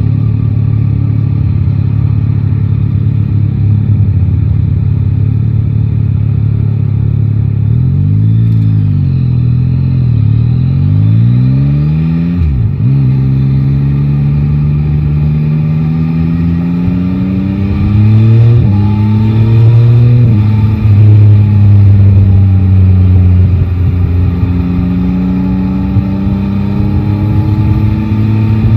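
Three-cylinder motorcycle engine running under the rider, steady at first, then rising and falling in pitch and accelerating through several gears, its pitch climbing and dropping back at each upshift.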